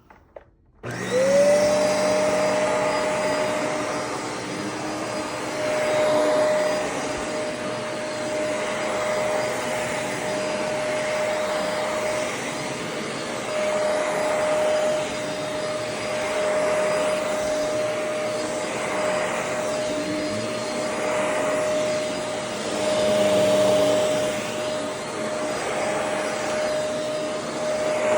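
Shark Rotator upright vacuum cleaner switched on about a second in, its motor spinning up with a short rising whine, then running steadily on a rug with a constant high whine. Its level swells and eases every few seconds.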